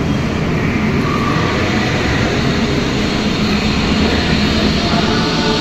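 A steady, loud rumbling noise with a low hum underneath.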